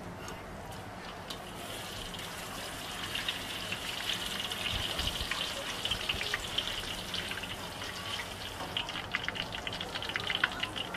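Black stinky tofu deep-frying in a wok of hot oil: a steady sizzle full of small crackles that grows louder a few seconds in, with sharper pops near the end.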